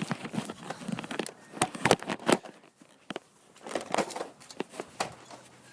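Plastic clicks and knocks from a Nerf blaster being handled, a scattered series of short sharp sounds.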